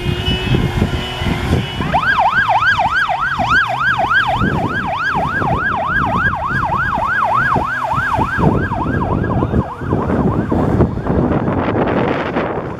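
Police-style yelp siren rising and falling about four times a second. It starts about two seconds in and fades out after about eight seconds, over loud vehicle noise that grows rougher near the end.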